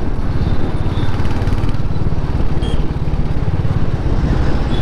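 Motorcycle engine running steadily while riding through slow traffic, with road and wind noise.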